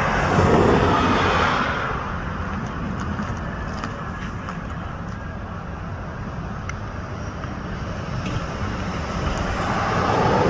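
Steady rush of outdoor road traffic, louder near the start and again near the end.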